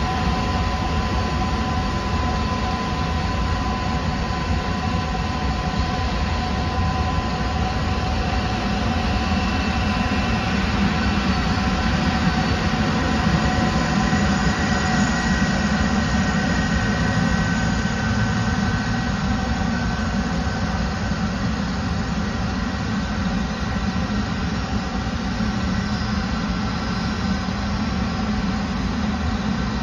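Airbus A330 freighter's twin jet engines running steadily as the aircraft rolls along the runway: a continuous low rumble with steady high engine tones above it, swelling slightly in the middle.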